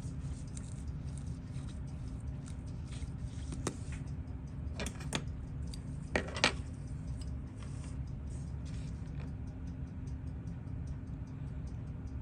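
Small clicks and taps of watchmaker's tools on a Seiko 7548 quartz watch being taken apart, the sharpest two close together about six seconds in, over a steady low hum.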